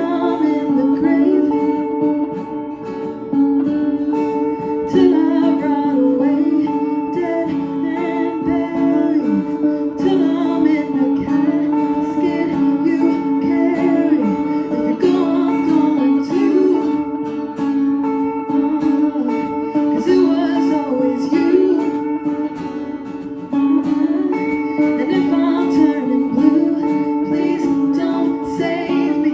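Music: a song sung over plucked guitar accompaniment, with steady sustained notes under a moving melody.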